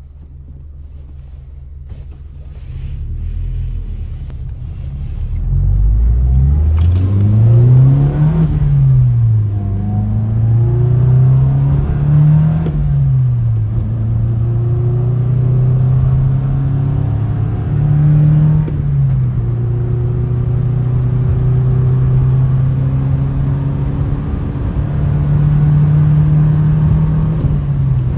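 Nissan Silvia S15's SR20 four-cylinder engine, heard from inside the cabin, pulling away and working up through the gears. The engine note climbs and drops at upshifts about 8 and 12 seconds in, rises and falls briefly again near 18 seconds, then holds a steady cruise.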